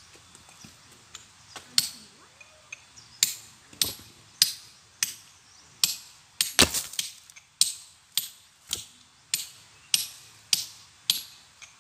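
A run of sharp, ringing clinks from hard strikes on stone during manual stone splitting, about one to two a second, with a quick cluster of the loudest hits about six and a half seconds in.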